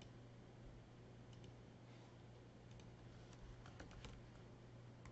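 Faint, scattered clicks of a computer mouse and keyboard, with a quick run of keystrokes near the end as a folder name is typed.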